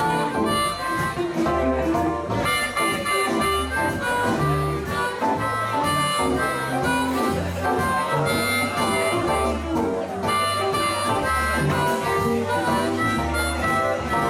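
Live electric blues band playing, led by an amplified harmonica blown into a microphone cupped in the hands, over electric guitar, bass and drums.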